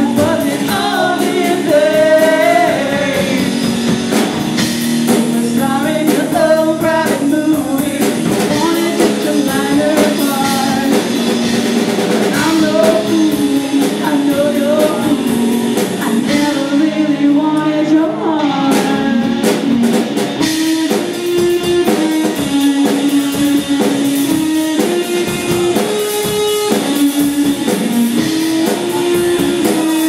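Live rock band playing: singing over guitar and a drum kit. About two-thirds of the way through, the singing gives way to a guitar melody.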